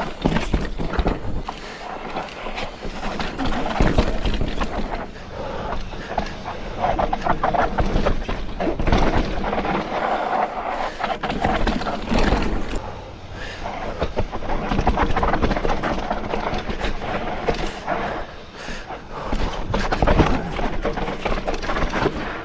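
Scott Ransom full-suspension mountain bike riding down rocky dirt singletrack: tyres crunching over dirt and rock, with frequent rattles and knocks from the bike, loudness swelling and easing as the terrain changes.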